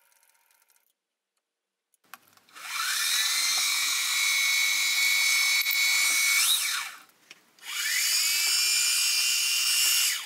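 Milling machine spindle drilling holes in a CNC 3018 Z-axis carriage. About two and a half seconds in, the whine climbs in pitch to a steady tone and runs for several seconds, then stops. It starts again a moment later for the next hole, climbing to the same steady pitch.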